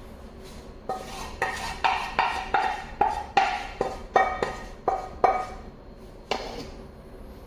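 A metal utensil knocking on a metal kitchen vessel about a dozen times in quick succession, two or three knocks a second, each ringing briefly, with one last knock about a second after the rest.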